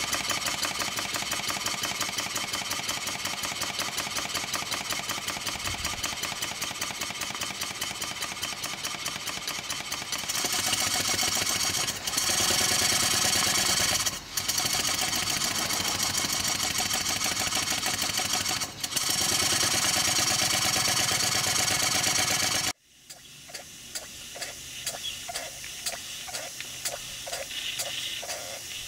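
Small vertical model steam engines running on live steam, with a fast, even beat of exhaust and clattering valve gear. The sound grows louder about ten seconds in, and near the end cuts off suddenly to a quieter, slower pulsing.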